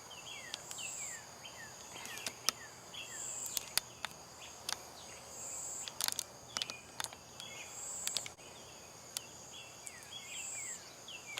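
Insects trilling steadily at a high pitch, swelling every couple of seconds, with short falling chirps repeating throughout and a few sharp clicks.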